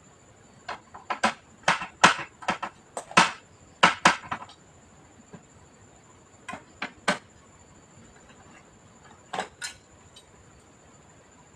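Sharp clicks and knocks of hard parts being handled while a computer is being taken apart: a quick run of about a dozen in the first four seconds, then a few more spaced out, over a faint steady high-pitched tone.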